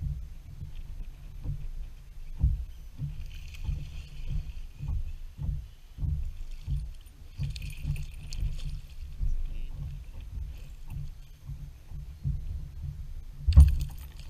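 A hooked chain pickerel splashing at the water's surface beside a kayak, in bursts around the middle, with a loud thump near the end. Under it are irregular low thumps.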